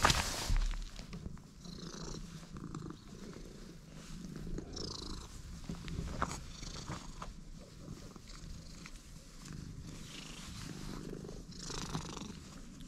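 Orange-and-white stray cat purring steadily while being stroked. A short thump about half a second in as the cat brushes close to the camera.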